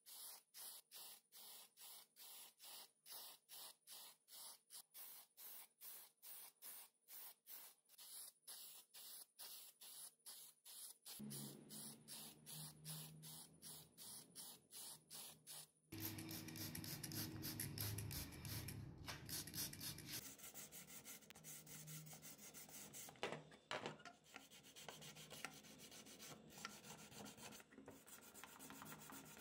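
Faint sandpaper rubbing on a hard plastic toy housing. It starts as quick, even strokes, about three a second, then after a change about halfway through turns to denser, irregular scrubbing.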